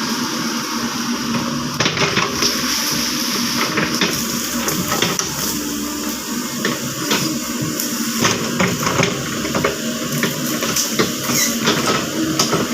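Caterpillar 307.5 mini excavator engine running steadily while the bucket works wet peat and water in a ditch, with frequent sharp clanks and knocks and watery sloshing.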